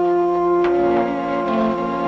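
Background music score playing held, sustained chords.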